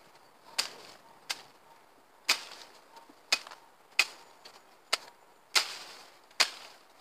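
Footsteps on a boardwalk of wooden pallets laid over a muddy path: a run of sharp, hollow knocks about one a second at a slightly uneven walking pace.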